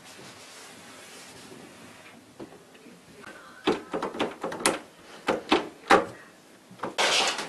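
Door lever handle rattling and clicking as it is rubbed with a microfibre cloth: a run of about eight sharp clicks in the middle, then a short scrubbing rush near the end.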